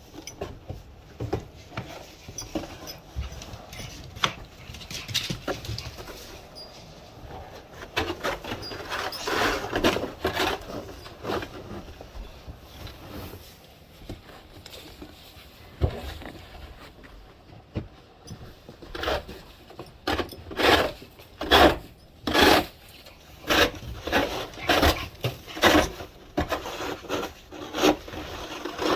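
Snow shovel scraping across the porch, clearing snow in repeated strokes that come about once a second near the end.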